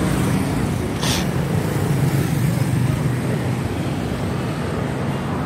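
Road traffic: vehicle engines running close by in a steady low hum, with a brief hiss about a second in.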